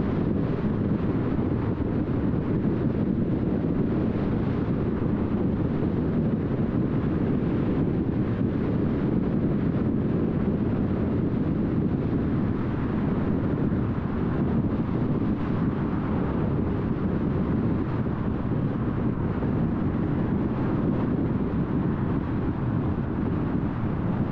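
A car driving along at a steady speed: a constant low rumble of tyres on the road and the car running, with no changes or separate events.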